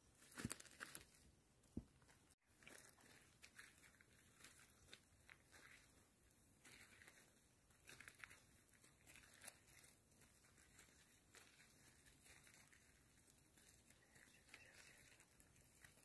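Near silence with faint scattered rustles and crunches, with a couple of sharper clicks in the first two seconds.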